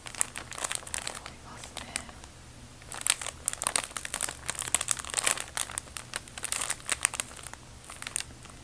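A bag being crinkled and crumpled by hand in irregular rustling handfuls, thickest in the middle.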